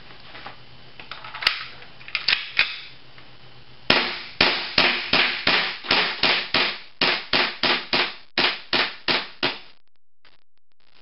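WE Tech 1911 gas blowback airsoft pistol, propane-powered, firing. There are a few scattered shots about a second and a half to two and a half seconds in, then a rapid string of about eighteen sharp pops with slide clacks, roughly three a second, that stops near the end.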